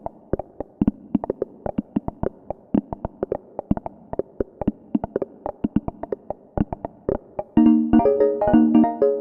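Moog Subharmonicon synthesizer playing fast sequenced plucky notes in a 7:9 polyrhythm. Near the end, louder held chord tones join and the texture thickens.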